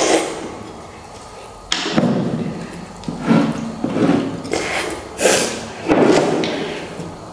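People slurping instant noodles from bowls at a hurried contest pace, in several loud sucking bursts, with a sharp thud just under two seconds in.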